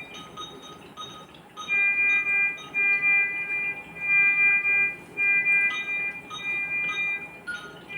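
Electronic beeping from NICU medical equipment: several overlapping alarm tones. Steady held beeps of about a second repeat on and off, mixed with short high pips.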